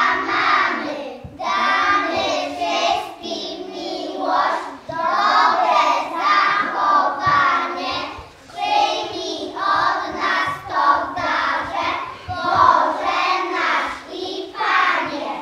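A group of young children singing a song together in sung phrases with short breaks, stopping at the very end.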